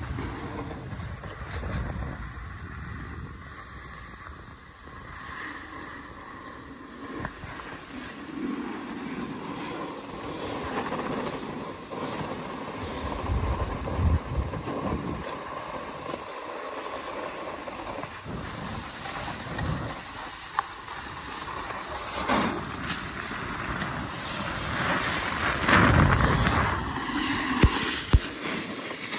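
Snowboard sliding and scraping over groomed snow, with wind buffeting the microphone in gusts. The scrape grows loudest near the end as the rider comes close, and two sharp clicks follow just before the end.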